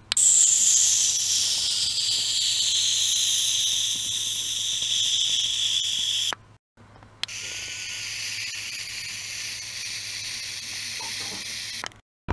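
Ultrasonic probe immersed in a glass of water, the water giving off a loud high-pitched hiss under ultrasound, with a whine that falls in pitch over the first few seconds. The sound cuts off about six seconds in, starts again a moment later, and stops just before the end.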